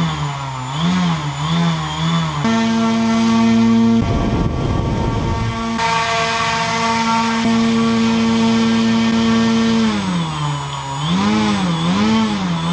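Brushless RC outrunner motor spinning a propeller on a thrust stand. Its whine wavers up and down with the throttle, then jumps to a steady higher pitch for several seconds before easing back and wavering again. A rush of air noise rises over it about four seconds in and lasts under two seconds.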